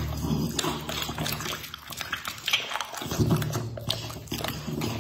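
A bully-breed dog biting and chewing raw meat, with a run of wet smacking and clicking chews that ease off for a moment about two seconds in.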